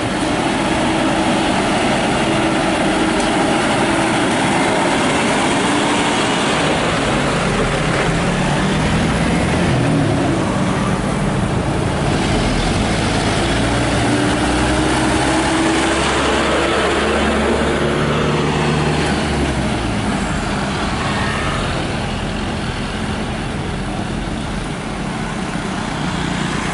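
Diesel engines of heavily loaded Mitsubishi Canter light trucks pulling past one after another, running continuously with the engine pitch climbing and falling several times as they accelerate.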